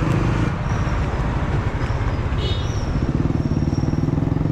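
Motor scooter engine running in city traffic, easing off for a couple of seconds and then pulling again. Traffic noise runs under it.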